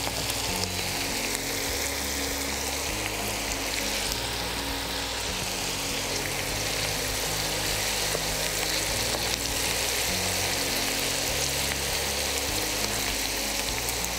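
Okra pieces coated in gram flour and cornflour deep-frying in hot oil over high heat: a steady, even sizzle of bubbling oil.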